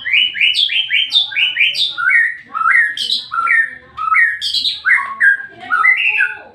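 White-rumped shama singing: a quick run of evenly repeated whistled notes, about five a second, followed by varied rising and falling phrases.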